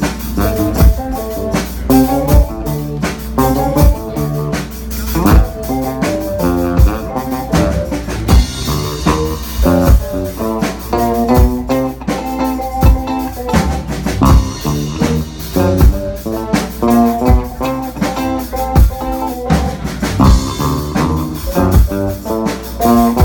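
A band playing a song: keyboard and other pitched instrument parts over a drum kit keeping a steady beat.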